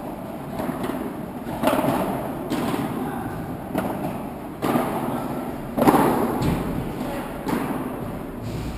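Padel rally: the ball is struck back and forth with solid paddles and bounces on the court, giving a string of sharp knocks, roughly one a second, the loudest about six seconds in.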